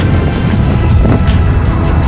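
Background music with a steady, quick beat.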